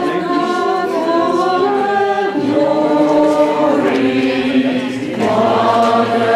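Mixed amateur choir singing together in held chords, with a short dip about four seconds in before the voices come back in full.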